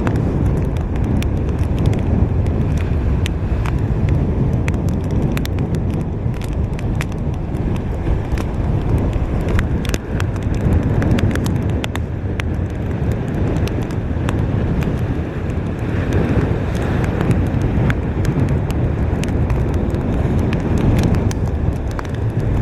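Hurricane-force wind buffeting the microphone: a loud, steady, gusting rumble peppered with many small sharp crackles.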